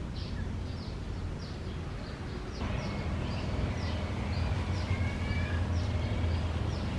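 Birds chirping: a run of short falling chirps about twice a second over a steady low outdoor rumble, which grows louder and noisier about two and a half seconds in.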